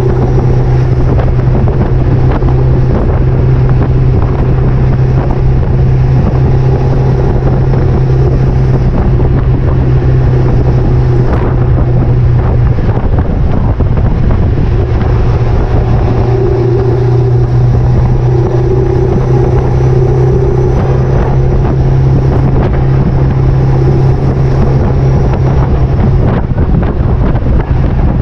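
Wind noise on a microphone riding on a towed trailer at road speed, over a steady low drone of road and tyre noise. Short rattles and knocks from the trailer run throughout.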